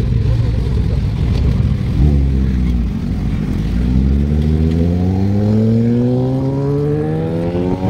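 Motorcycle engines running at a standstill, then, about two seconds in, one engine pulls away and accelerates hard, its pitch rising in one long, smooth climb.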